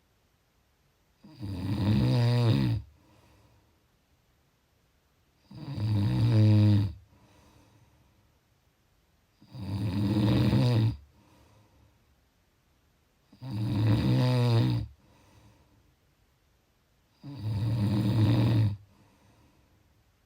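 Snoring: five loud, even snores about four seconds apart, each lasting about a second and a half, with a faint breath after each.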